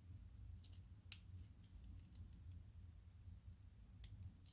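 A few faint, light clicks of small metal lock parts being handled while the driver pins and springs of a disassembled pin-tumbler lock are examined, the sharpest about a second in, over a low hum.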